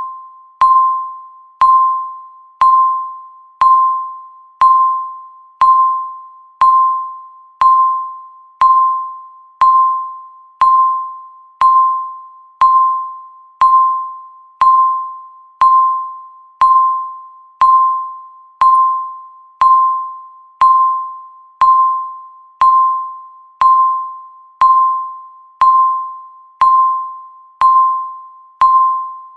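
Electronic countdown-timer beep, one short single-pitched tone each second that starts sharply and fades before the next, each beep marking one second counted down.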